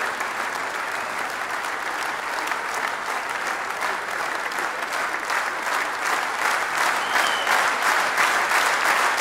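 Concert audience applauding, a dense steady clapping that grows a little louder over the last few seconds.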